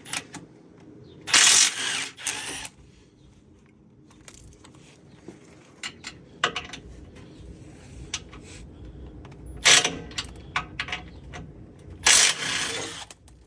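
Tools and bolts being handled while working on a vehicle's underbody: scattered small metal clicks and clinks, with three short loud bursts of noise, near the start, about ten seconds in and near the end.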